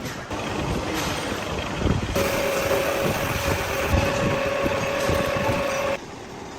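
Metalworking machine running, with a steady high whine from about two seconds in that stops about six seconds in.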